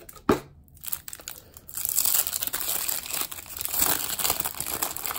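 Clear cellophane wrapper of a 1987 Topps cello pack of baseball cards crinkling and tearing as it is pulled open by hand. The crinkling starts about two seconds in and goes on steadily. It follows a single sharp tap near the start.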